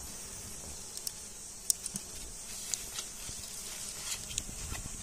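Steady high insect buzz, with a few faint clicks and scrapes as a knife cuts wild honeycomb off a branch.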